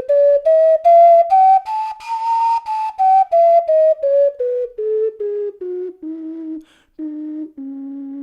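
12-hole Alto F ocarina playing a scale one note at a time: the notes step up to the top of its range about two seconds in, then step back down to the bottom, ending on a few longer, lower notes after a short break. The maker says its last few holes are a bit flat.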